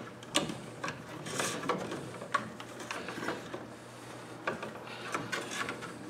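Irregular clicks, taps and rustling of electrical cable being handled and pushed into plastic switch boxes.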